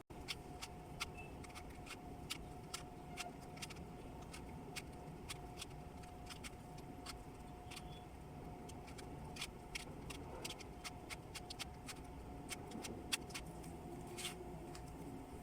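Rubik's Cube being twisted by hand: a run of small, sharp, irregular clicks, about two or three a second, over a faint steady hum.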